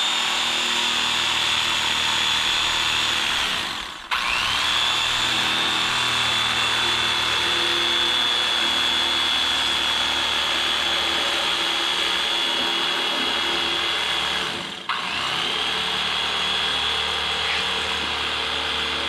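Electric carving knife running, its small motor whining steadily as the reciprocating blades saw through a foam sheet. The motor stops briefly twice, about four seconds in and again near fifteen seconds, and spins back up each time.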